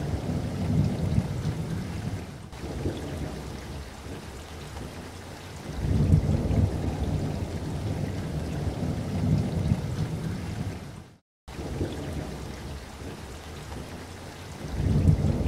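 Low rumbling cooking noise from a pot of vegetables being stir-fried on the stove. It swells and fades, and cuts out briefly to silence about eleven seconds in.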